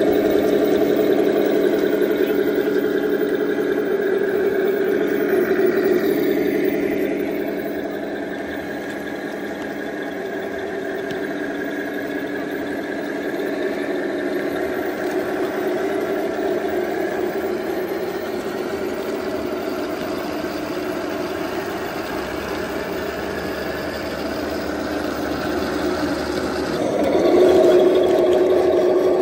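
Simulated tank engine sound from radio-controlled scale model tanks, idling steadily through their small onboard sound-unit speakers. It swells louder near the end.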